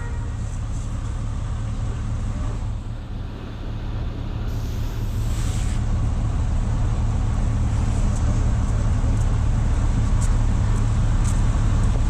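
Steady low rumble of road traffic with an engine hum, and a brief hiss about five seconds in.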